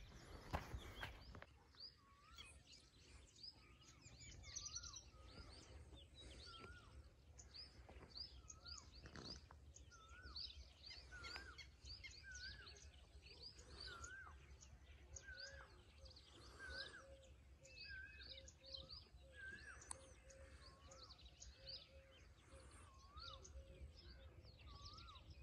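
Several birds chirping and calling, faint: a steady run of short high chirps, with a lower whistled note that rises and falls, repeated every second or so.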